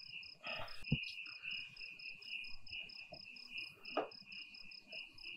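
Crickets chirping steadily: a continuous high trill with a higher, evenly pulsed chirping over it at about five chirps a second. A soft knock sounds about a second in.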